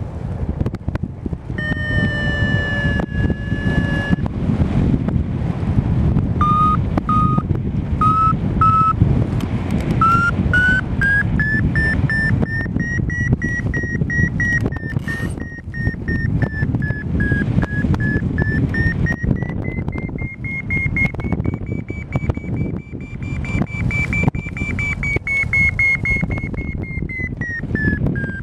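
Paragliding variometer signalling lift in a thermal: a steady tone, then short beeps about two a second, then from about ten seconds in a continuous tone that climbs, dips and climbs again in pitch as the climb rate changes. Under it runs a steady rush of wind on the microphone.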